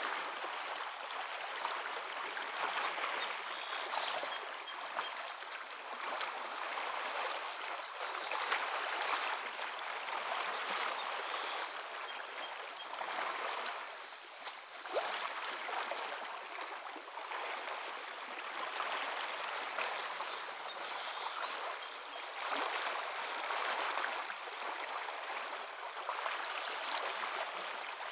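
Strong river current running through shallows: a steady hiss and splash of moving water.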